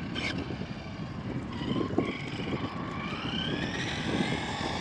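Brushless electric motor of an RC buggy whining, its pitch rising as the buggy speeds up, over steady wind buffeting on the microphone.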